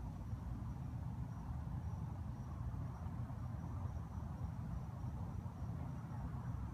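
Crickets chirping in a steady high trill, over a low steady rumble.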